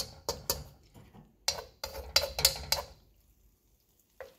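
Metal slotted spatula scraping and knocking against a cast iron wok as cubes of tofu in sauce are stirred: a run of short clicks and scrapes that stops about three seconds in, with one more brief click near the end.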